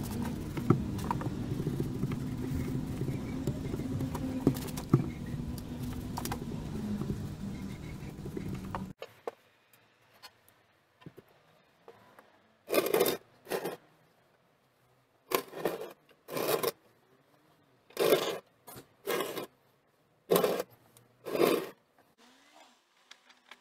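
Cleaning work on a small engine. First a steady scraping and scrubbing with scattered clicks, which cuts off suddenly. Then, over quiet, about eight short swishing strokes come loosely in pairs, about a second apart.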